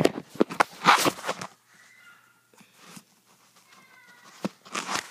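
A cat meowing, with faint drawn-out calls around two and four seconds in, amid sharp clicks and rattles during the first second and a half and again near the end.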